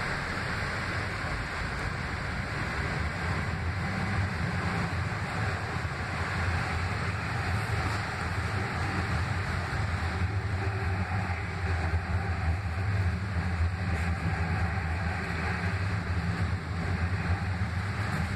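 Interior running noise of a Kinki Sharyo light rail car in motion: a steady low rumble with a rushing hiss over it, getting a little louder over the first few seconds and then holding steady.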